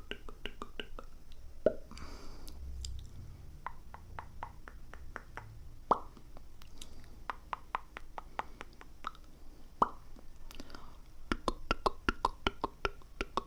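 Close-miked ASMR mouth sounds: a run of quick wet clicks and pops, with single louder pops about two, six and ten seconds in and a dense flurry near the end. A soft breath comes about two seconds in.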